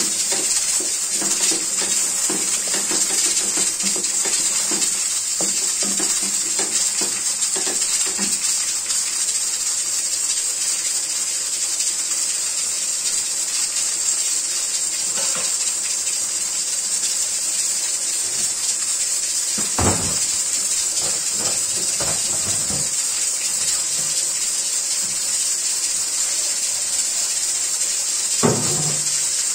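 Liver and onions sizzling and bubbling in a stainless-steel pan, a steady high hiss. A spatula knocks and scrapes against the pan about two-thirds of the way through and again near the end.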